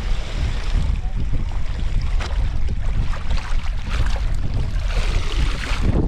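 Seawater pouring and splashing out of a plastic basket fish trap as it is hauled up from waist-deep water, growing louder near the end, with wind buffeting the microphone.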